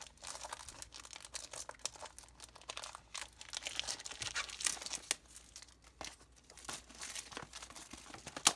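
Packaging of a Pokémon card prerelease kit being torn open and crinkled by hand, in irregular rustles, with a sharp click near the end.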